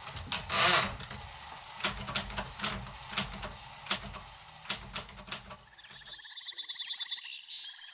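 Scattered clicks and knocks over a low hum. About six seconds in, the hum drops out and a rapid, even pulsing of several high tones begins, like an electronic sound effect on an old film soundtrack.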